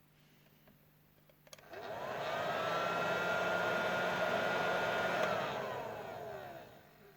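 An electric hot-air blower is switched on with a click, spins up to a steady whine, runs for about three and a half seconds, then is switched off and winds down with a falling whine.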